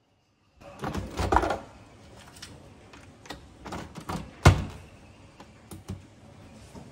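Clicks and knocks of a double-walled glass mug being set down and positioned on an espresso machine's metal drip tray. There is a busy cluster of handling noise about a second in, scattered clicks after it, and one sharp knock about four and a half seconds in.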